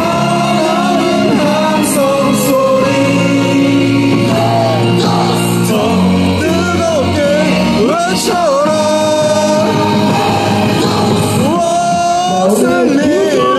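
Korean baseball player's cheer song: loud music with a sung melody over held low backing notes, continuing without a break.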